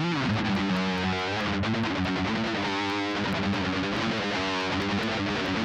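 Epiphone Les Paul 100 electric guitar played through a Jam Buddy effects amp and a Go-Mixer Pro: a lead line of held notes, some with a wavering vibrato, about three and four and a half seconds in.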